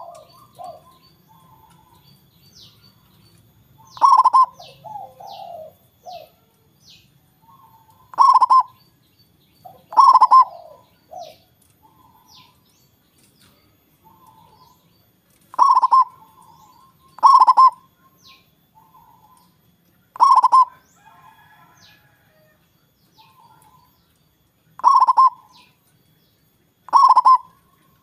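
Zebra dove (perkutut) cooing: loud, short coo phrases about nine times, every two to five seconds, with softer coo notes between them. Faint high chirps of small birds in the background.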